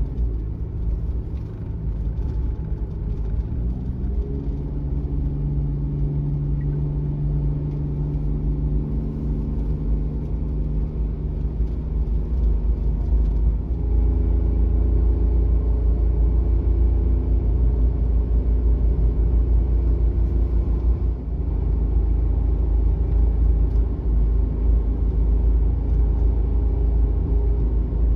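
Suzuki Every kei van's 660 cc three-cylinder engine and road rumble heard inside the cab while driving. The engine note rises about four seconds in and gets louder again around fourteen seconds, with a brief dip near twenty-one seconds, as the engine works up through the revs.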